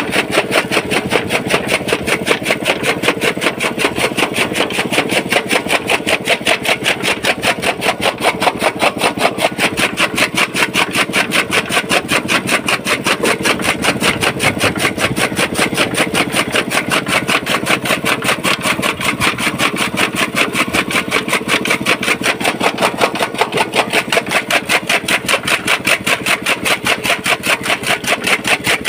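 Chaff cutter (toka) driven by a small petrol engine, running steadily while its flywheel blades chop green fodder in a fast, even beat.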